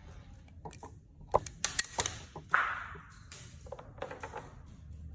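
A string of irregular hard clicks and clacks, about a dozen, from an airsoft gas-blowback gun and its magazine being handled. About two and a half seconds in there is a louder clack followed by a brief hiss.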